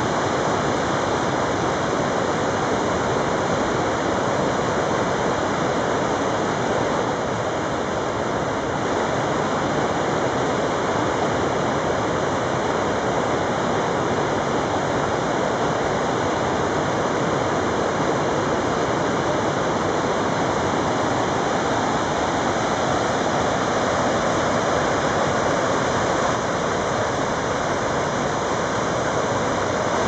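The Falls of Dochart rushing over flat rock ledges and through rapids: a steady, even rush of water with no break.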